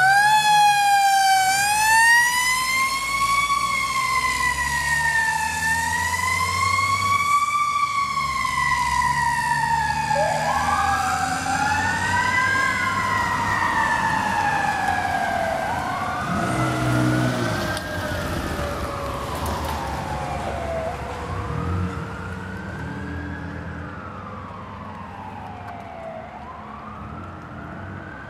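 Fire tanker's siren (a 2005 Mack Granite) wailing slowly up and down over the truck's diesel engine rumble. From about ten seconds in a second siren sweeps up and down over it. Everything fades through the second half as the tanker drives away.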